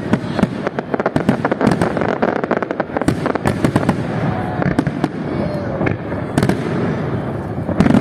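Fireworks display going off: a rapid string of bangs and crackles, densest in the first three seconds or so, then scattered bangs, with a strong one at the end.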